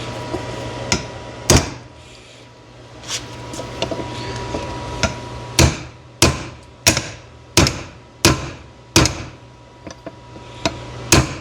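Hammer blows on steel, driving the knurled pin into a car door hinge to seat the knurl. A single hard blow about a second and a half in, then a steady run of six blows about one and a half a second, and one more near the end, with a steady low hum in the first two seconds.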